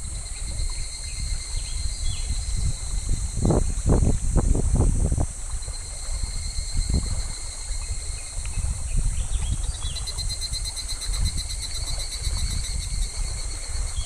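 Cicadas droning in the trees above a shallow stream, with a rapidly pulsing cicada song joining about ten seconds in. Beneath it runs a steady low rumble, and water splashes several times about three to five seconds in.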